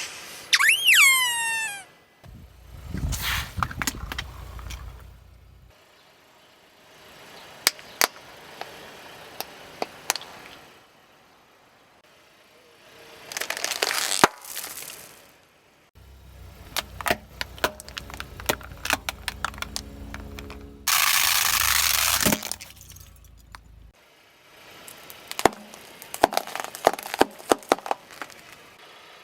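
Objects cracking and crunching under a car tyre in a series of short separate clips, with sharp snaps and crackles, a low engine rumble beneath some of them, and a loud hissing rush about 21 seconds in. A falling whistle-like sound effect opens it.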